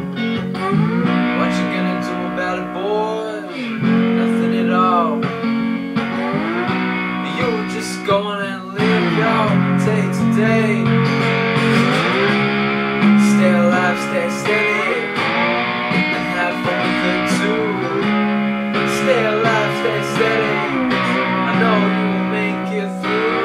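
Electric guitar played lap-steel style, an instrumental solo with notes sliding up and down between pitches over held chords.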